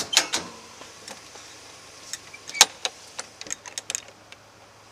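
Sharp clicks and knocks from an animal control truck's compartment door and latch being handled: a couple of knocks at the start, a loud one about two and a half seconds in, then a quick run of lighter clicks.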